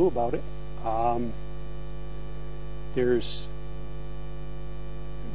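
Steady electrical mains hum with a ladder of overtones, running under the recording, with a few short voice sounds: one just at the start, one about a second in and one around three seconds in.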